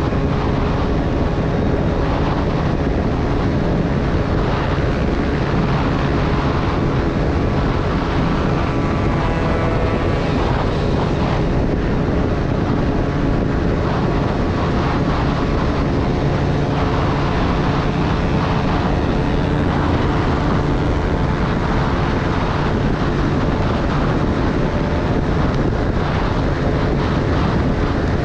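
Beta 300 RR two-stroke enduro engine running steadily at high speed, with wind buffeting the camera microphone.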